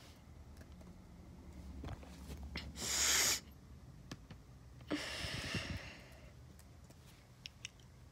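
Two short breathy bursts close to the microphone, a louder one about three seconds in and another about five seconds in, over faint clicks and a low handling rumble.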